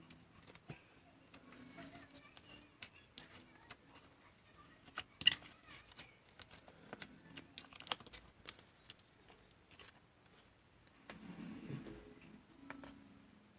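Slime being poked, pressed and stretched by hand, giving scattered small clicks and pops, the loudest about five seconds in.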